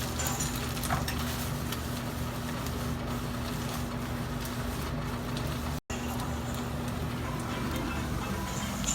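Sliced onions frying in butter in a pan, a faint sizzle with the odd click of stirring over a steady low hum. The sound cuts out for an instant about six seconds in.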